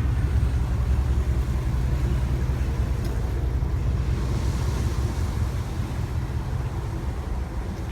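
Vehicle engine running, a steady low rumble heard from inside the cab.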